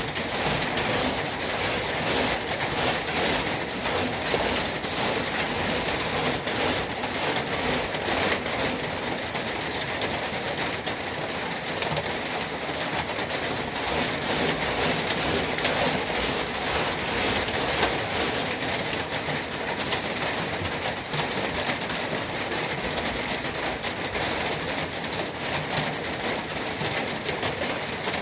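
Coarse 60-grit sandpaper sanding the surface of a truck toolbox: a continuous abrasive rasp with a hiss that swells and fades a few times a second as the sanding strokes go back and forth.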